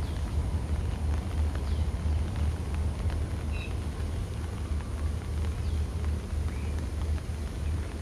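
Steady low outdoor rumble, with a few faint short bird chirps scattered through.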